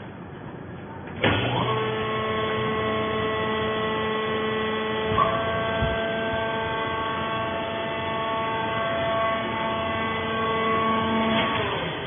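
Hydraulic power unit of a vertical coconut-fibre baler running, as the press platen is driven up off the compressed bale. It is a steady whine of several fixed tones that starts abruptly about a second in, with a brief knock about five seconds in, and dies away near the end.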